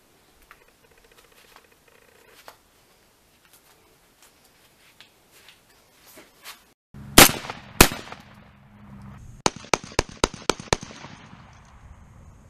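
Faint ticks from hands working on the gun, then, about seven seconds in, a Rock Island Armory VR80 12-gauge semi-automatic shotgun firing: two loud shots about half a second apart, followed by a rapid string of about seven quieter shots.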